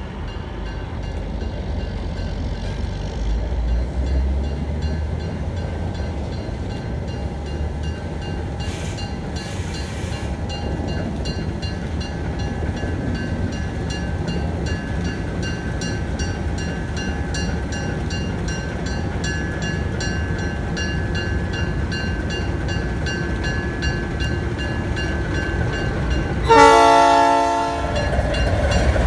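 Alco RS1 diesel switcher's engine running with a low rumble that grows louder as it approaches with a string of hopper cars. Near the end the locomotive's horn sounds one short blast.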